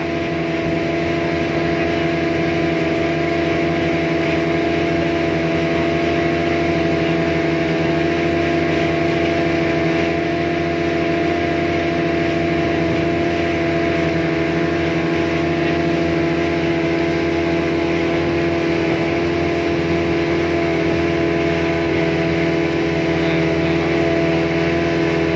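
Motorboat engine running steadily at a constant speed, its pitch unchanging, over a rushing noise as the boat travels.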